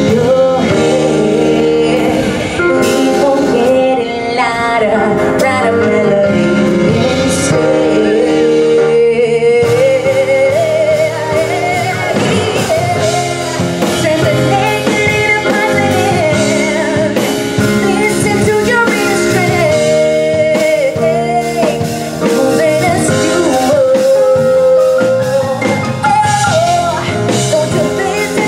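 Live band playing: a woman sings a melody into a microphone over keyboard chords, a drum kit and electric bass guitar.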